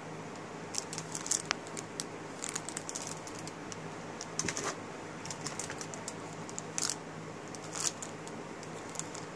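Clear plastic bags of model-kit parts crinkling in the hands in short, irregular crackles, over a faint steady hum.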